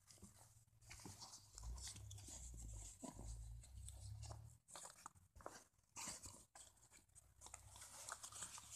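Faint handling noise: cloth rustling and rubbing against the phone's microphone, with scattered small clicks and a low rumble from about two to four and a half seconds in.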